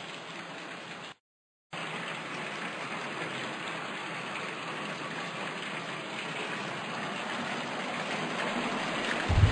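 Nutrient solution pouring into a styrofoam tub: a steady splashing rush of water that drops out for a moment about a second in, then carries on evenly.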